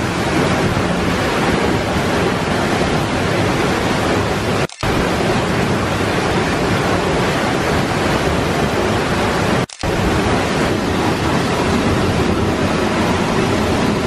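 Giessbach Falls pouring down close at hand, a loud steady rush of falling water heard from behind the falling curtain. The sound cuts out for a moment twice, about five and ten seconds in.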